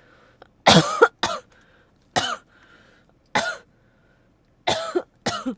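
A person coughing from a lingering head cold: a string of six or seven coughs, about one a second, some coming in quick pairs.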